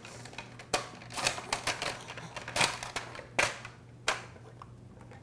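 Butternut squash being sliced on a plastic mandoline slicer: the hand guard pushes the squash across the blade with a sharp click and scrape on each stroke, about eight strokes in an uneven rhythm, stopping about four seconds in.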